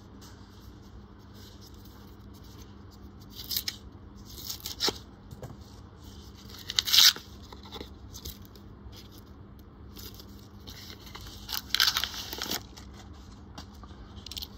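Paper coin-roll wrapper being torn open in a few short rips and crinkles, the loudest about seven seconds in and another near twelve seconds.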